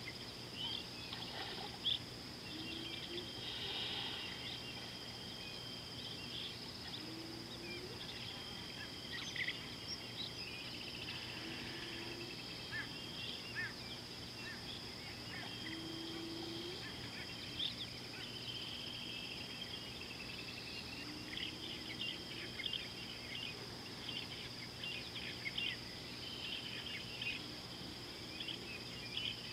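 Savanna riverside ambience: a steady high insect drone, with birds calling throughout, repeated long whistled notes and many short chirps, and a short low call every few seconds.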